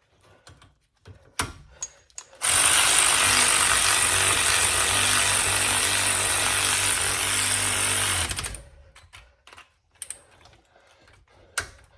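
A power tool runs steadily for about six seconds, driving in the front brake caliper's sliding pin, with a few light metal clicks before and after.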